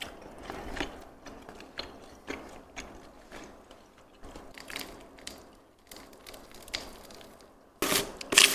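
Close-up chewing: a run of small wet clicks and soft crunches from a mouthful of nasi lemak with crispy sambal. Near the end come a few louder grating strokes as the metal screw lid of a glass jar is twisted open.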